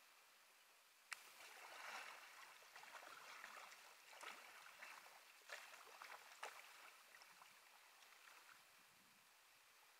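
Faint splashing and trickling water from kayak paddle strokes, the blades dipping and dripping beside the hull. It starts with a sharp knock about a second in, carries a few more sharp clicks, and fades near the end.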